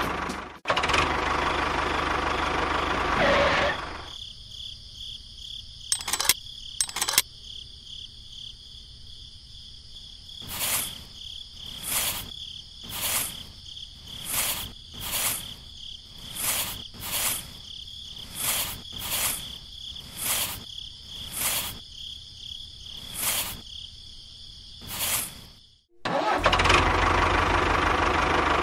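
A toy tractor's engine sound runs for the first few seconds, then stops. After two sharp clicks, about fourteen soft swishes follow, one every second or so, as a small shovel loads sand into the trolley over a steady high-pitched background tone. The engine sound comes back near the end.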